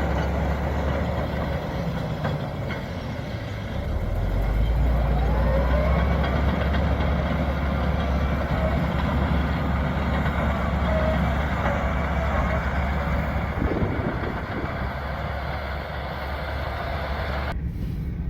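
Caterpillar D8K dozer's six-cylinder diesel engine running, with a steady low drone that gets louder about four seconds in and holds.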